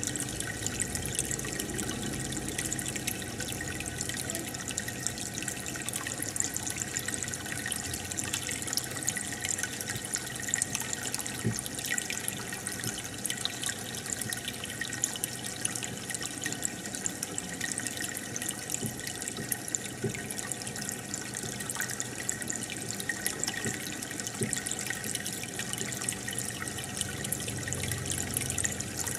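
Aquarium air bubbler and filter running: a steady stream of bubbles trickling and popping at the water surface, with many tiny crackling pops.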